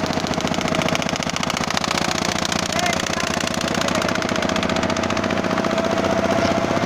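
A wooden boat's engine running steadily, with a rapid, even knocking beat and a faint steady whine over it.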